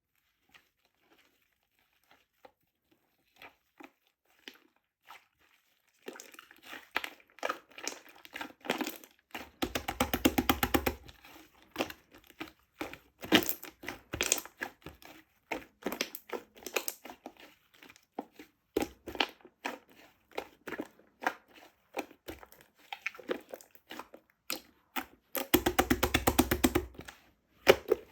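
Crinkling and crackling handling sounds: a few faint ticks at first, then dense crackling from about six seconds in, with two louder crunching stretches, one about a third of the way in and one near the end.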